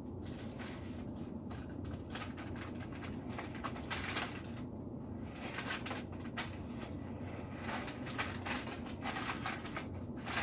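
Irregular light clicks, taps and rustles of hands working with kitchen utensils and paper at a counter, over a steady low hum.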